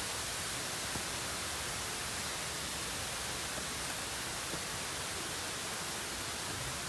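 Waterfall rushing: a steady, even hiss of falling water that cuts off abruptly at the end.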